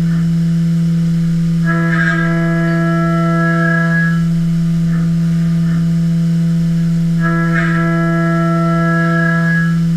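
CNC vertical machining centre's end mill cutting a metal plate under flood coolant: a steady droning whine. A brighter ringing tone rises over it twice, about two seconds in and again about seven seconds in, each lasting roughly two and a half seconds.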